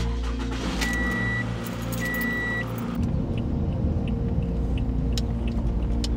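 Toyota car's electronic warning chime beeping twice, each beep held about half a second. About three seconds in, the engine starts and runs, with a light regular ticking over it.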